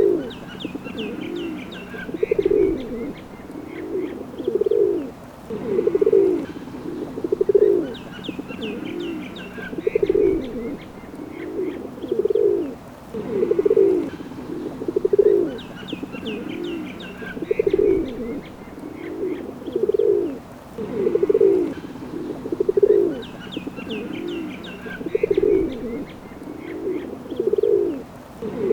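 Pigeons cooing over and over, low rolling coos coming about every second and a half. A short burst of high chirping returns roughly every eight seconds.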